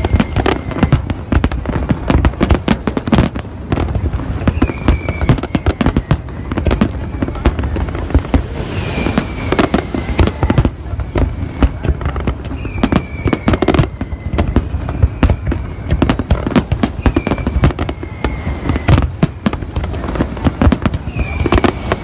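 Aerial fireworks display, a continuous barrage of shells bursting with dense bangs and crackling. A short falling whistle recurs about every four seconds through it.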